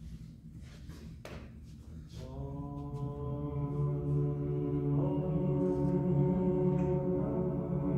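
Male voices singing a cappella in chorus. A held chord comes in about two seconds in and moves to a new chord about five seconds in, growing louder.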